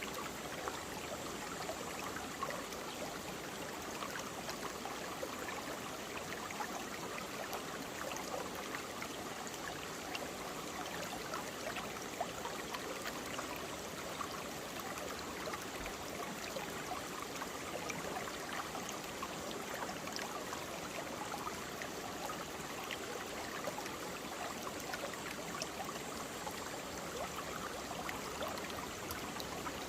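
Mountain stream flowing steadily over rocks, a constant rushing with many small splashes and gurgles.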